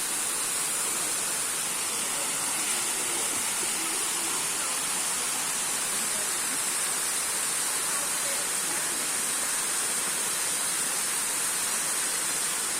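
Waterfall rushing: a steady, unbroken hiss of falling water that holds the same level throughout.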